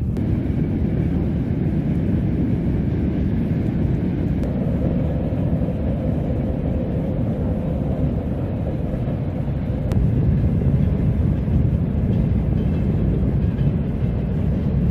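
Swollen stream after rain, rushing water making a loud, steady low rush with no break.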